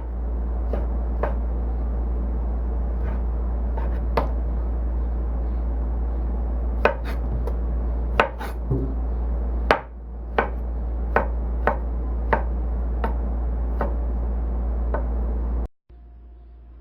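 Kitchen knife chopping vegetables on a cutting board: irregular sharp knocks, quickening to about two a second in the second half, over a steady low hum. The sound drops off suddenly near the end.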